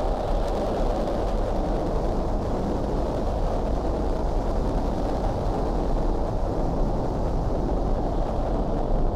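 A steady low rumble of noise, even in level throughout, with no distinct events.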